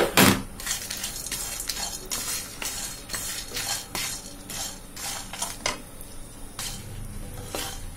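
Spatula stirring whole spices dry in a nonstick pan: an irregular run of scrapes and rattles as cloves, peppercorns, cinnamon sticks and dried chillies slide over the pan, lightly toasting them for a masala.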